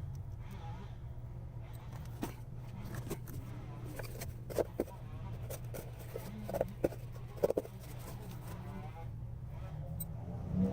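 Sped-up time-lapse audio of valve spring removal on a Honda K24 cylinder head: a steady low hum with scattered quick clicks and metal clinks from the spring compressor and valve parts, and a few short, high, garbled squeaks.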